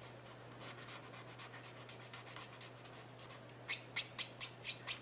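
Alcohol-ink blending marker nibs (Blendabilities) stroking across cardstock while colouring and blending an image: faint light strokes at first, then from about three and a half seconds in, louder quick strokes at about three or four a second.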